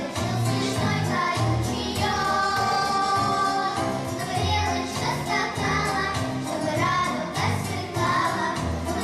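Children's vocal ensemble singing a song with instrumental accompaniment and a stepping bass line; the voices hold a long chord about two to four seconds in.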